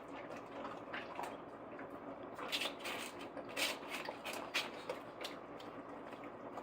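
A large dog eating from its bowl: irregular wet smacking and crunching clicks, with three louder ones in the middle.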